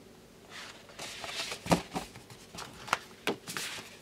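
Stiff card stock and envelopes being handled: a soft paper rustle and slide, then several light taps and clicks as the cards are shifted and set down.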